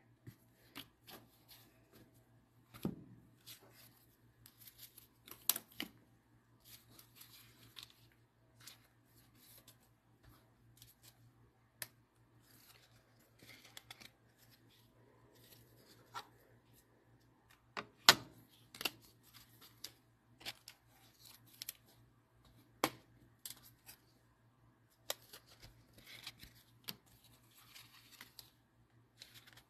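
Faint, scattered clicks, taps and rustles of trading cards and card packaging being handled, with a few sharper clicks, the loudest about 18 seconds in.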